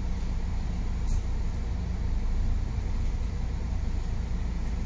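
Double-decker bus engine idling while the bus waits at a light, heard from inside the cabin as a steady low rumble.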